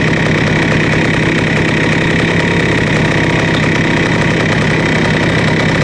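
1974 Yamaha DT175's two-stroke single-cylinder engine idling steadily, a little high, warming up. Under the idle is a faint slap that the owner takes for piston slap.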